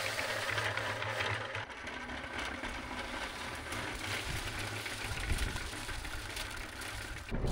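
Concrete mixer running, a steady mechanical churn. The sound changes about a second and a half in.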